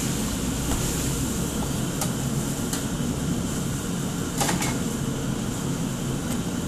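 Steady rushing noise of a commercial kitchen's wok burner flames and extraction hood fan, with a few sharp metal clinks of utensils at the wok, a slightly longer scrape about two-thirds of the way through.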